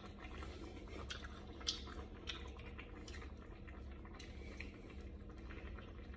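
Quiet mouth sounds of someone tasting a bite of soup: a few faint wet smacks and clicks over a low steady hum.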